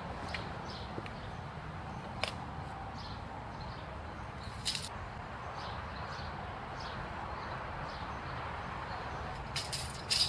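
Outdoor yard ambience: a steady background hiss and low hum, with a bird chirping repeatedly. A few sharp clicks come through, with a cluster near the end.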